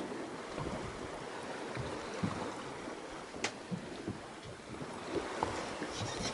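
Water lapping around a small fishing boat at sea with light wind on the microphone, broken by a few faint clicks and knocks, the sharpest about three and a half seconds in.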